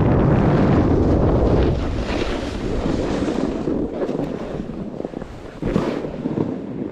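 Wind buffeting the microphone: a loud rumble for the first couple of seconds that then eases, with a few short scrapes or knocks afterwards.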